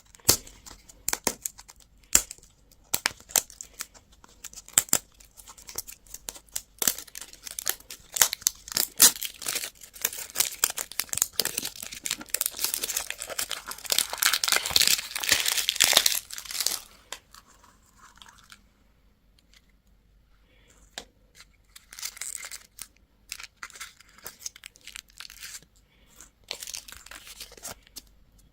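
Candy or surprise-egg wrapper being crinkled and torn open: dense crackling that grows thickest about two-thirds of the way through, then a short lull and sparser crinkles near the end.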